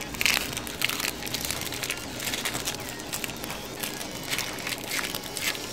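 Small plastic bag of computer screws crinkling as it is handled and pulled at to open it: irregular sharp crackles and rustles.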